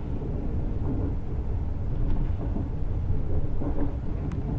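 Steady low rumble of a moving passenger train, heard from inside the carriage, with a single short click about four seconds in.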